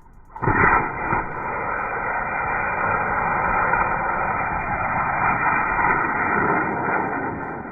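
Anar fountain firework lit and burning: it starts suddenly about half a second in with a whoosh and hisses steadily as it sprays sparks, then begins to die down near the end.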